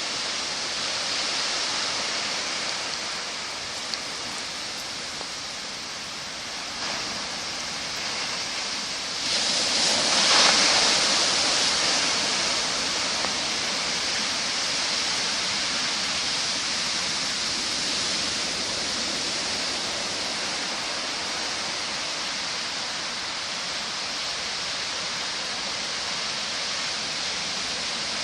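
Heavy typhoon surf breaking and washing ashore as a steady roar of water, with one louder surge about ten seconds in.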